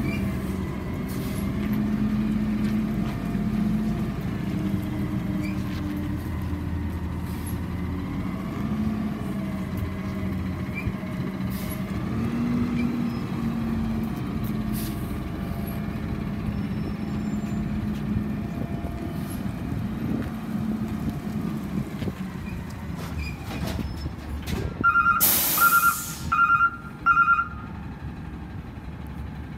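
Peterbilt garbage truck with an Amrep side-loader body, its natural-gas engine running and rising and falling in pitch as it drives. About 25 seconds in, a loud air-brake hiss comes with four short beeps of the reverse alarm.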